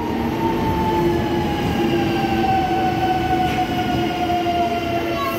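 Newag Impuls EN96 electric multiple unit moving along the platform, with a steady rumble of wheels and running gear. Over it an electric whine from the traction equipment, in several tones that glide slowly downward.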